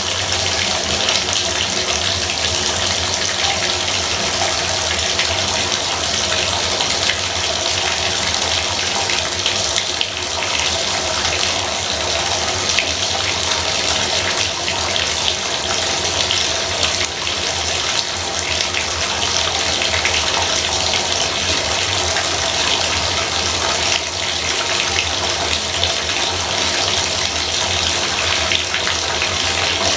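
Bathtub faucet running water in a steady, unbroken stream.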